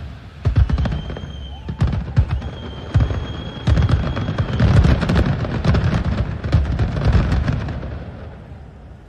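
Fireworks going off: dense crackling and deep booms, with a steady high whistle from about one to four and a half seconds in. The display fades away over the last second or two.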